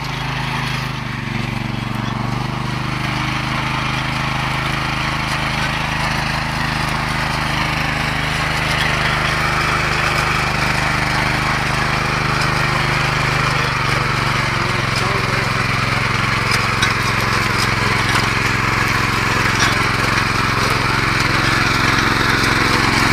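Datsu motor hoe (walk-behind rotary tiller) engine running steadily under load while its tines churn through soil. The engine note changes slightly about fourteen seconds in.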